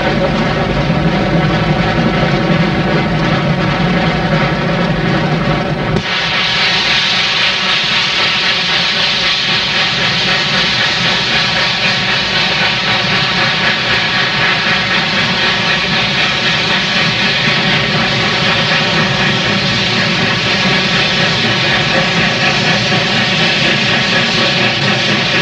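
Steam locomotive working, a steady, loud roar of exhaust and running gear. About six seconds in the sound changes suddenly, losing its low rumble and turning brighter.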